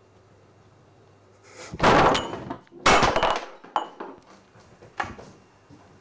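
Two loud thumps about a second apart, then lighter knocks with a brief glassy ring, as a wine bottle is knocked over on a wooden table.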